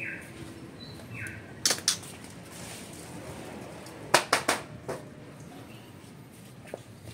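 Sharp clicks and light rattles from a wire bird cage and its fittings: a pair about a second and a half in and a quick cluster of several around four seconds in. Two short falling notes come near the start.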